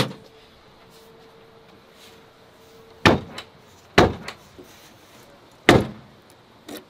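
Three heavy slams of the 1971 Plymouth Duster being shut up, the first two about a second apart and the third nearly two seconds later, followed by a lighter knock near the end.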